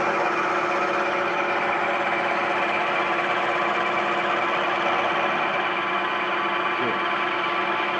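Milling machine running with its cutter taking a roughing pass across the workpiece, about 15 thousandths deep. A steady machine hum with many held tones and no pauses.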